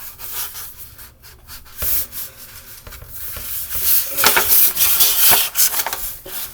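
A sheet of paper being folded and its crease pressed flat, fingers rubbing and scraping along the fold. The rubbing is loudest and busiest about four to five and a half seconds in.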